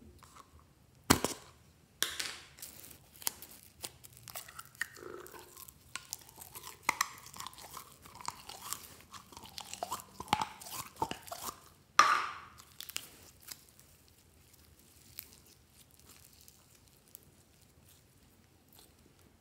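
Orange slime being handled: a sharp click as the plastic tub's lid comes off about a second in, then a long run of small clicks and crackles as the slime is tipped and peeled out of the tub and stretched. The sounds thin out to faint occasional pops after about thirteen seconds.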